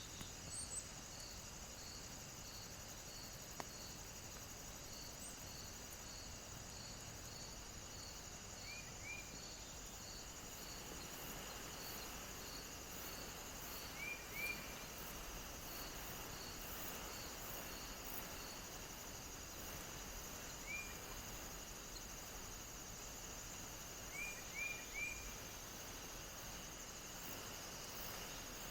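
Insects chirping steadily in a faint outdoor night ambience: continuous high trills, with a higher pulsed chirp repeating about twice a second for much of the time. A few short rising chirps come in twos and threes now and then.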